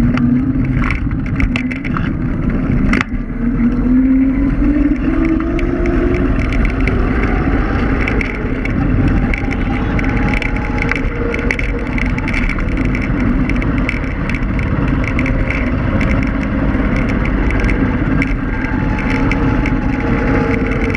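Electric scooter riding on asphalt: a steady rumble of tyres and wind on the microphone, with a motor whine that rises in pitch over the first several seconds as the scooter picks up speed. A few sharp rattles come near the start.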